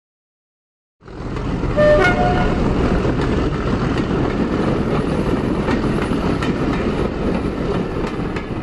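Recorded train sound starting suddenly about a second in: steady running noise with a brief two-note horn toot, low then high, just after it starts.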